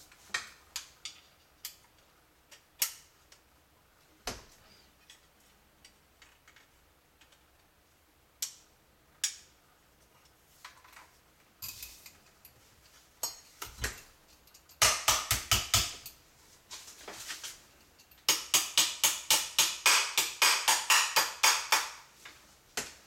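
Small hammer tapping a retaining pin into the receiver of a Beretta A391 Xtrema 2 shotgun: two runs of quick, light metal taps about five a second, the second run longer. Before them come a few scattered metal clicks of parts being handled.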